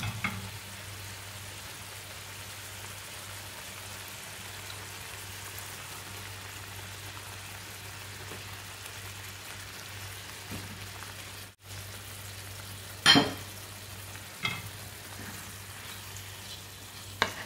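Masala gravy sizzling steadily in a frying pan while raw mutton liver pieces go in, with a few sharp knocks, the loudest about 13 seconds in.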